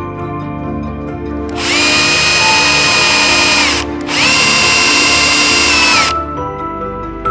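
Cordless drill running in two bursts of about two seconds each, a steady whine that rises as it spins up and drops away as it stops, with a short pause between, as it drills into a glider's composite control surface at a hinge fitting.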